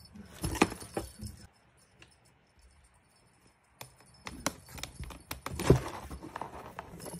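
Cardboard and paper rustling and knocking as a cat plays in a box, mixed with light jingling of a small bell on a string toy. The activity comes in a short flurry at the start, stops for a couple of seconds, then picks up again from about four seconds in and keeps going.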